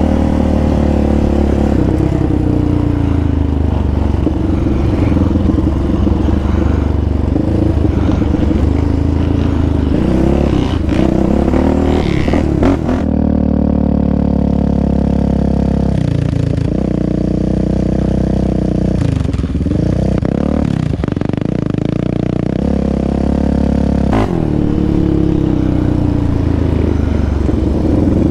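Yamaha Raptor 700R sport quad's single-cylinder engine running under way over a rough dirt trail, its pitch rising and falling with the throttle, with rattle from the machine on the rough ground. About halfway through the engine sound turns duller for some ten seconds, then returns to its earlier tone.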